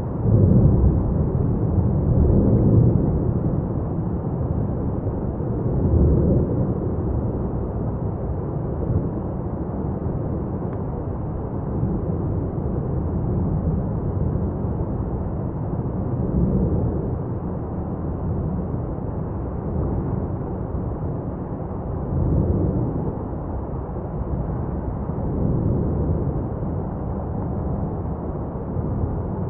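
Lava fountain at Etna's South-East crater during a paroxysm: a continuous deep rumble that swells louder several times, most strongly in the first few seconds.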